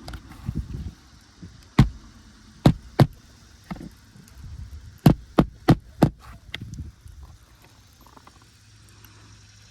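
Roofing nails being driven into an asphalt shingle: about seven sharp strikes, one alone, then two close together, then a quick run of four, with lighter handling knocks in between.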